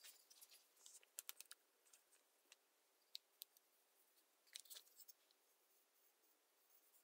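Near silence with a few faint clicks and scrapes: a steel carpenter's square being handled on newspaper while black paint is brushed onto it.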